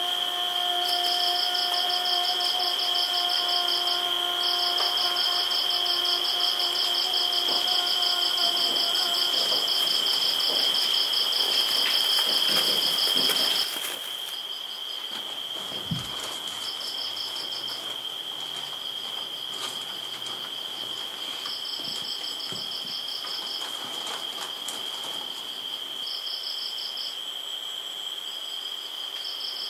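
Insects chirping: a continuous high trill, with trains of rapid pulsed chirps above it that start and stop. A steady low droning tone sounds beneath for about the first nine seconds. The whole sound drops in level about fourteen seconds in, and there is one soft thump shortly after.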